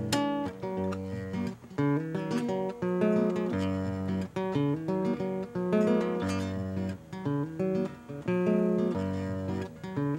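Acoustic guitar playing a ballad introduction, plucked and strummed chords changing every second or so.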